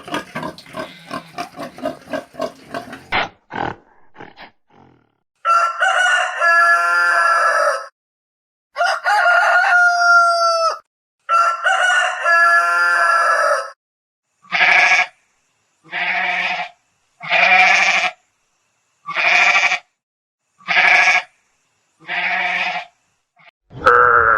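A series of farm animal calls: rapid grunting that fades out within the first few seconds, then a rooster crowing three times, then six short bleats evenly spaced about a second and a half apart.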